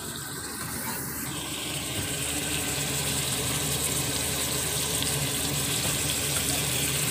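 Raw shrimp sizzling in a hot pot of sautéed garlic, onion and tomato as they are stirred, a steady hiss that swells about a second in.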